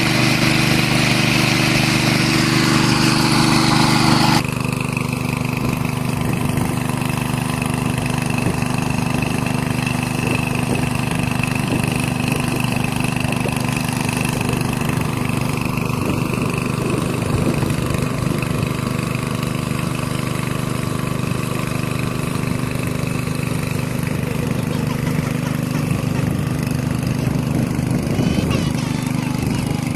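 Small engine running steadily at an even speed, with an abrupt change in its sound about four seconds in.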